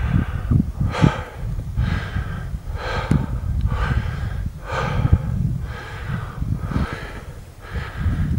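A person breathing hard close to the microphone, one breath about every second, over a steady low wind rumble on the microphone.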